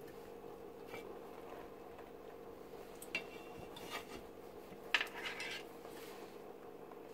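A glass pot lid with a metal rim clinking against a stainless steel cooking pot as it is taken off, a short clink about three seconds in and a louder clatter about five seconds in.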